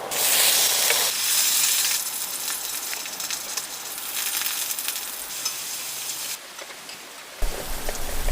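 Food sizzling and frying in a hot pan, a steady hiss with small pops, heard in several short cuts.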